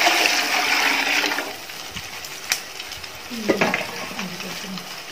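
Water poured into a large metal cooking pot over hot fat and whole spices, gushing steadily and then stopping about a second and a half in. A single sharp click comes a second later.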